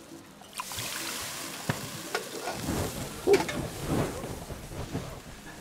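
A hot pan on a tableside burner sizzling as spirits are poured in for a flambé. The hiss starts about half a second in, with a few clinks and knocks.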